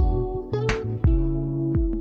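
Background music with a steady beat: sustained instrumental tones over regular drum-like thumps and sharp hits.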